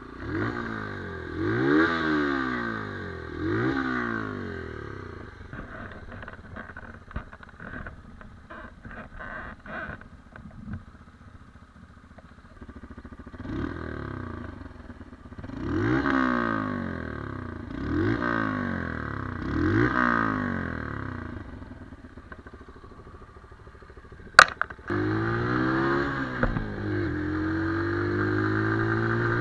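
Brixton BX 125 R's single-cylinder four-stroke engine revved in short blips while standing, each one a quick rise and fall in pitch, six in all, idling with a light clatter in between. Near the end there is a sharp click, then the engine pulls away and holds a steady, louder note.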